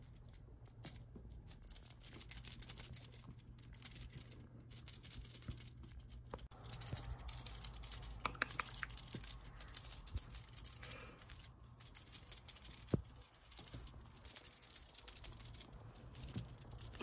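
Faint rustling and scratching from two kittens pawing at a feather wand toy and shifting about in a crocheted, organza-draped basket, with a few sharp clicks. A low steady hum runs underneath.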